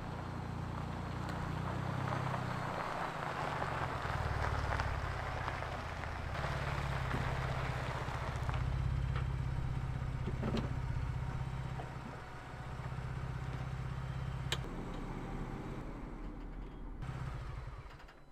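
Ford Bronco driving, its engine running low and steady under tyre noise with scattered knocks and clatter. The sound falls away near the end.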